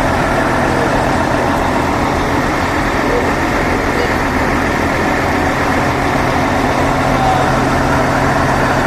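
Large diesel trucks idling with a steady low hum, over a background of crowd chatter.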